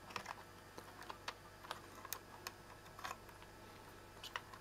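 Faint, scattered small clicks and plastic handling noises as wire connectors are pulled off the printed circuit board of a Bernina 910 sewing machine.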